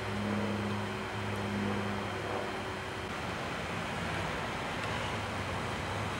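Street traffic noise: a steady low hum for the first two and a half seconds, then an even rushing noise.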